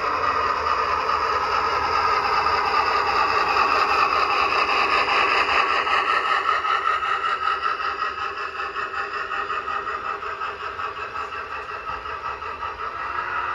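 Model train running along the layout track, its motor and wheels on the rails, growing louder as it passes and then fading away.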